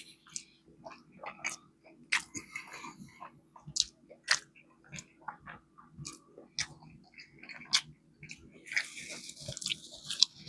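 Close-up chewing and biting of fried chicken: irregular sharp crunches and wet mouth clicks, with a longer stretch of crunching near the end.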